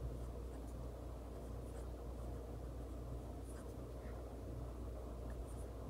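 Sharpie pen writing on paper: faint, soft scratching pen strokes over a steady low background hum.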